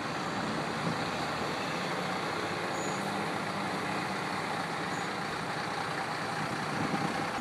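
Medium-duty truck engine running steadily as the truck moves slowly forward along the street, hauling a large cut tree on its bed.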